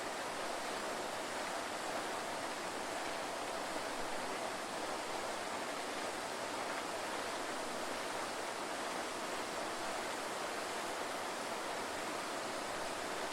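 Waterfall: a steady, even rush of falling water, with no change in level.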